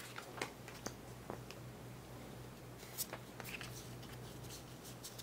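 Pokémon trading cards being handled and slid through by hand: scattered soft clicks and rustles over a faint steady low hum.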